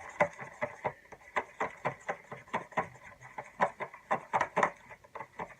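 Shampoo-and-salt slime mixture being stirred in a bowl with a utensil: a run of irregular quick clicks and taps, several a second.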